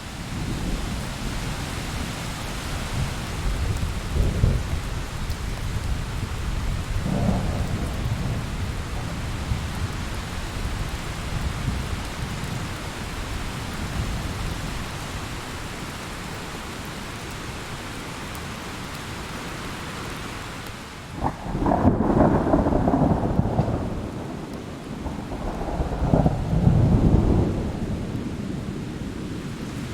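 Thunderstorm: steady rain with low rolls of thunder. About two-thirds of the way through a sharp thunderclap cracks and rumbles loudly for a few seconds, and another roll of thunder swells near the end.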